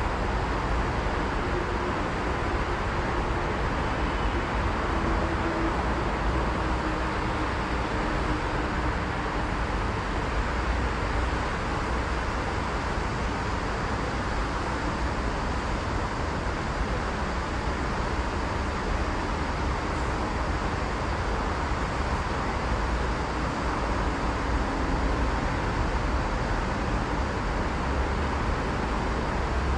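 Steady city road traffic noise, an even hum with no single vehicle or train standing out.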